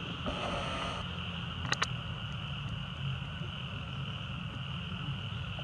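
Steady, high-pitched drone of forest insects, with a brief rustle about half a second in and two sharp clicks near two seconds.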